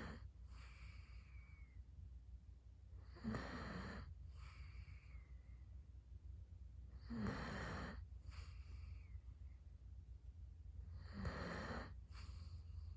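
Sleeping basset hound snoring: three loud snoring breaths about four seconds apart, each followed by a softer breath with a faint falling whistle.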